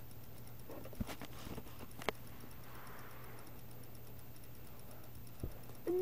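A few scattered light knocks and taps, about a second apart near the start and once more near the end, over a steady low hum.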